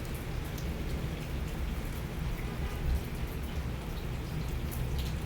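Heavy rain falling steadily in a thunderstorm, with a low rumble underneath.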